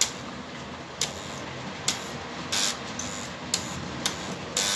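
Surface mounted model railway point motors being switched back and forth, each throw a sharp click, several of them with a brief buzz, roughly one every second.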